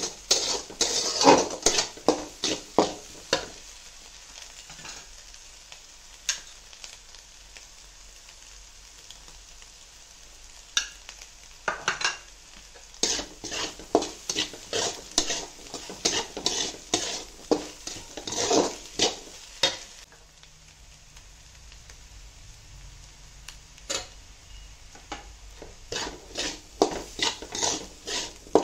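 Metal spatula scraping and clattering against a hammered aluminium wok, stir-frying egg and chopped vegetables in quick runs of strokes with pauses between, over a faint steady sizzle.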